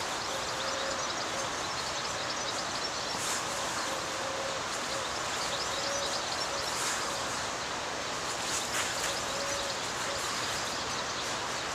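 Steady outdoor background hiss with faint, scattered high bird chirps and a few soft short tones.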